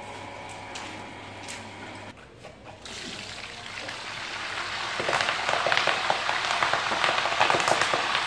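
Wild pomelo leaves frying in hot oil in a wok, a crackling sizzle. It starts about three seconds in and turns loud about five seconds in.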